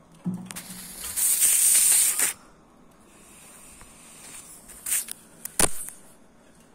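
A small metal bearing skidding and rolling across a hard marble floor, a loud hissing rattle lasting a little over a second. It follows a soft thump near the start and is followed near the end by a few sharp clicks as the bearing is knocked again.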